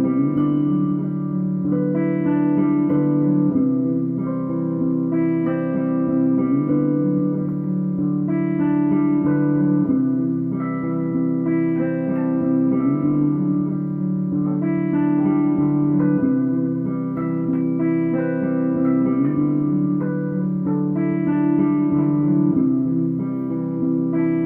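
Guitar music: plucked notes played continuously in a repeating pattern.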